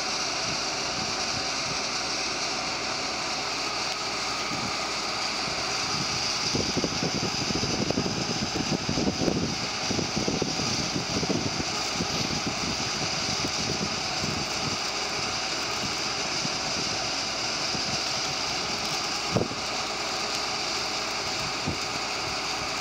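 Steady hiss and hum of a tram standing at the platform with its equipment running. Gusts of wind buffet the microphone through the middle, and there is a single sharp knock near the end.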